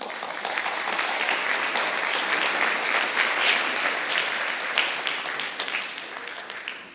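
Audience applauding. The clapping starts suddenly and fades away over the last second or two.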